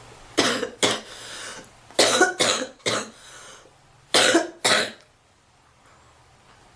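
A young woman coughing while smoking: about eight short coughs in three fits (two, then four, then two), with breaths drawn between the fits. The coughs stop about five seconds in.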